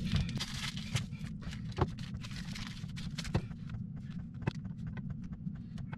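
Rustling and crinkling of a plastic cheese packet being opened and handled, with scattered small clicks and taps, over a steady low hum.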